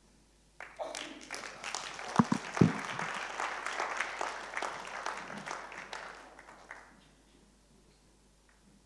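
Congregation applauding: the clapping starts about half a second in, holds, and dies away about seven seconds in. Two low thumps stand out about two seconds in.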